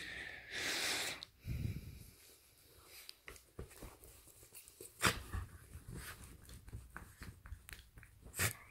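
A small dog being played with by hand on a bed: its breath sounds mixed with rustling of the bedcover and scattered soft taps and clicks. The loudest part is a rush of noise about a second in, with sharper clicks about five seconds in and near the end.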